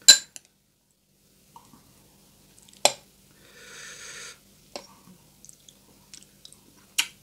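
Table-side handling sounds: a few sharp clicks and taps, the loudest right at the start, and about a second of soft scraping just after the middle, as a metal spoon scoops chili sauce from a small glass bowl onto a piece of crispy fried pork belly.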